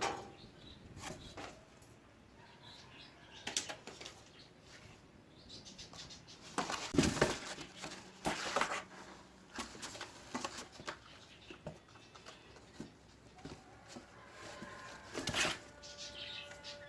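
Cats scuffling over a cardboard box: intermittent rustling and scraping with a few sharper knocks, strongest about seven, eight and a half and fifteen seconds in.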